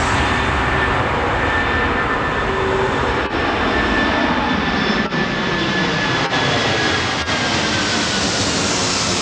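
Four-engine jet airliner climbing out after takeoff and passing overhead: a loud, steady jet roar with a faint high whine that slides slowly lower. Four short sharp clicks break through it.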